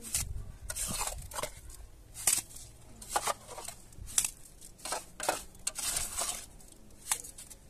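A series of short, irregular scraping and crunching sounds, about a dozen rasps of uneven spacing.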